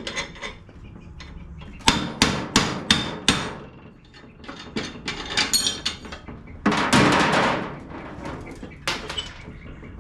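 A hammer striking metal on a mower deck: five quick, sharp taps about a third of a second apart, followed by lighter metal clanks and about a second of rasping scrape.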